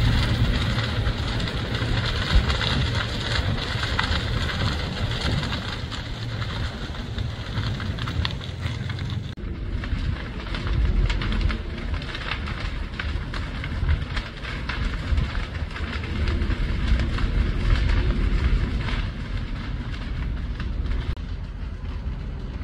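Grass fire crackling and popping as it burns through dry grass, over a steady low rumble. About nine seconds in the sound changes abruptly: the high hiss drops away while the crackling goes on.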